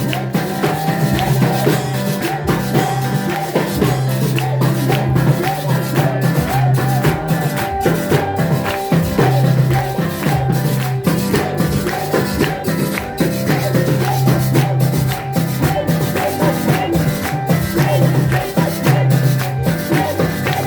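Music with drums and shaken percussion like maracas, keeping a steady beat over a strong bass line.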